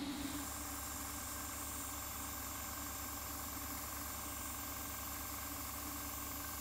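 Airbrush hissing steadily as it sprays paint through a mesh net onto a metal spoon lure blank, over a steady low hum.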